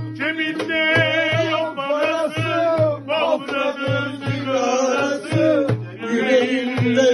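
A man sings a Turkish folk song in a wavering, ornamented line, accompanied by a plucked cümbüş (a metal-bodied, banjo-like Turkish lute) and a hand drum beating low strokes about two to three times a second.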